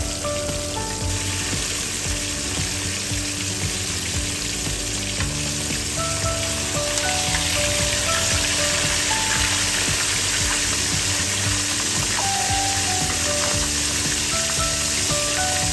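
Whole coated fish deep-frying in hot oil in a wok: a steady sizzle that grows louder about halfway through.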